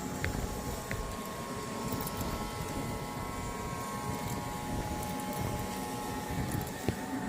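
Steady low rumble of machinery, with a faint steady whine joining about two seconds in and a few light clicks.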